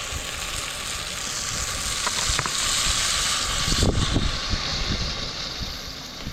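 Food sizzling in hot oil in a cooking pot, a steady hiss that grows louder in the middle, with a few low knocks about four seconds in.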